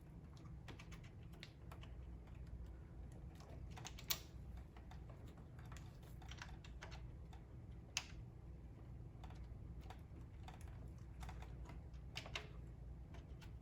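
Irregular light clicks and taps of metal parts as a fuel-rail bolt is worked by hand and threaded, with two sharper clicks about four and eight seconds in, over a low steady hum.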